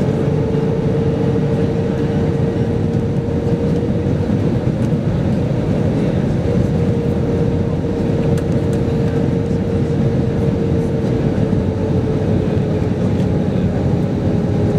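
Steady cabin noise inside an Airbus A320 seated over the wing: engine and airflow drone, with a steady hum that drifts slightly lower in pitch in the second half.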